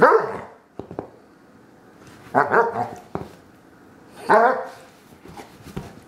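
Bloodhound giving three short, falling barks, each about half a second long: her bored, attention-seeking play calls, not the full Bloodhound bellow. A few light knocks fall between the barks.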